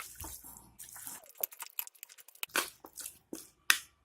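Raw chicken pieces being mixed in a thick, wet spice and soy-sauce marinade: irregular wet squelching and sticky smacks, with a brief lull in the middle.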